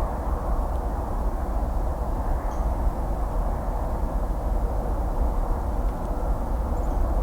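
Distant highway traffic: a steady, dull rumble of many vehicles' tyres and engines blending together, with no single car standing out.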